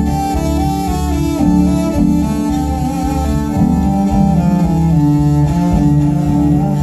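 Music: a bowed cello playing a moving melody over a held low note, with a steady pulse in the bass.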